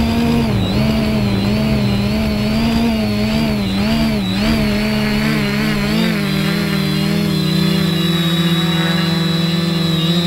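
Quadcopter's four brushless motors and 1045 propellers whining in hover, recorded from the onboard camera. The pitch wavers up and down as the flight controller corrects the craft's position on GPS position hold, then holds steady from about six seconds in.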